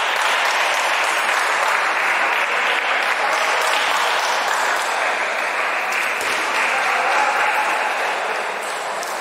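Steady, dense clatter of many table tennis balls striking bats and tables across a busy tournament hall, merging into an even, applause-like patter.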